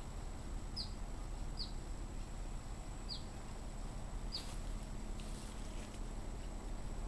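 A small bird gives four short, high chirps, each sliding downward, spaced a second or so apart. They sound over a steady outdoor background hiss, with a soft rustle about two-thirds of the way through.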